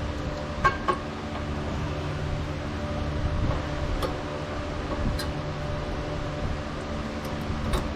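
A steady mechanical hum with a few light, sharp metal clicks: brake pad hardware clips being handled and snapped into a caliper bracket.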